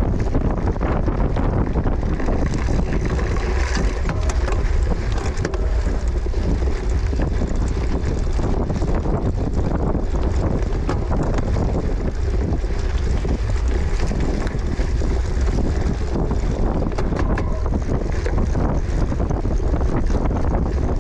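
Wind rushing over the microphone of a camera moving at cyclocross race speed: a steady, heavy low rumble with frequent small rattles and clicks.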